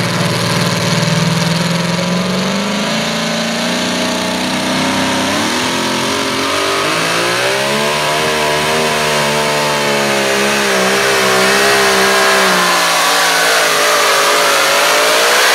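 Supercharged pulling truck's engine at full throttle, hauling a weight-transfer sled down the track. Its pitch climbs over the first few seconds, then rises further and wavers up and down under the load.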